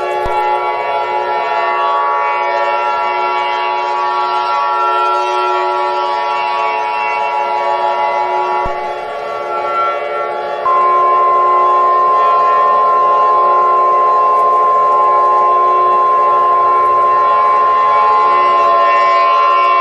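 Emergency alert tones over a steady, many-toned civil defense siren. A steady alert tone sounds for about eight and a half seconds and breaks off. About two seconds later a louder, single steady alert tone comes in and holds for roughly nine seconds.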